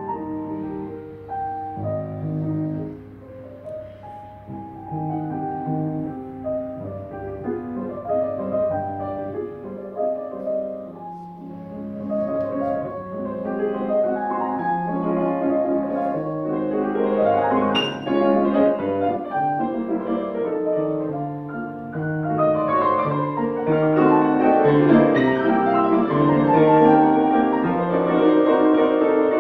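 Steinway grand piano played solo, a flowing passage of many quick notes that grows louder near the end.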